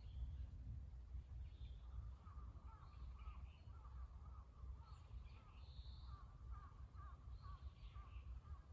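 Birds calling in woodland: a thin, wavering call repeated from about two seconds in until near the end, with scattered higher chirps. A steady low rumble, like wind on the microphone, runs underneath.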